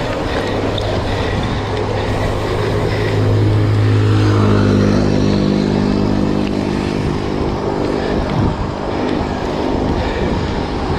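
Road vehicle engine running steadily under rushing wind and road noise. An engine hum with several overtones grows stronger in the middle and then fades.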